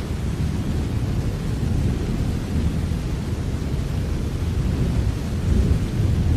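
Steady rain falling as an even hiss over a continuous deep rumble, swelling a little near the end.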